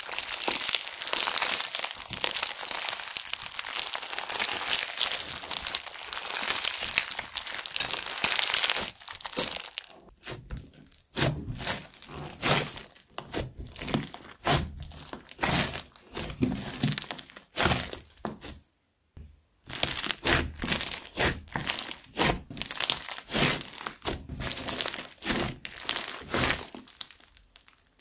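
Crunchy slime studded with foam beads being worked by hand, crackling and popping. For about the first nine seconds, while it is stretched, the crackle is dense and continuous. After that, as the slime is squeezed and pressed, it comes as separate crackles and pops with soft squishing, broken by a short pause about two-thirds of the way through.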